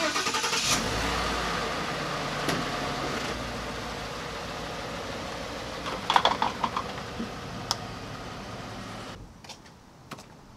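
Ford F-150's 5.0-litre V8 just fired up, running at a fast idle that eases down over the first seconds. A brief clatter of clicks comes around six seconds in, and the engine cuts off about nine seconds in.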